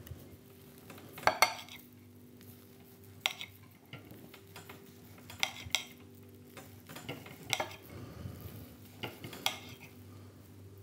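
Kitchen knife cutting Quorn vegetarian chicken slices on a plate, the blade clicking and scraping against the plate now and then, about eight sharp clicks spread irregularly through the cutting.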